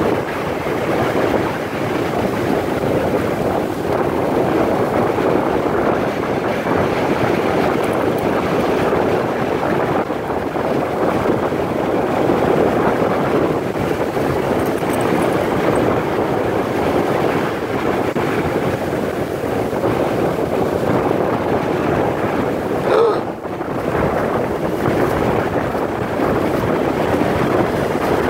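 Ocean surf breaking and washing up the beach, mixed with steady wind noise on the microphone; a brief sharp sound stands out about three-quarters of the way through.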